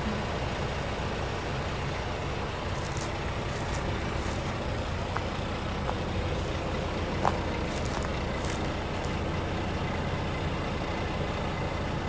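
A combine's diesel engine running at a steady idle: an even, low hum that holds unchanged, with a few faint clicks in the middle.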